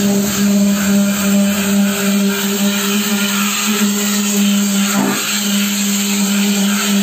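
Power tool motor running steadily with a constant hum, with a slight dip about five seconds in.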